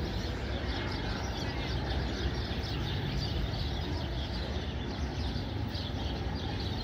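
Outdoor ambience of many small birds chirping and twittering continuously over a steady low rumble.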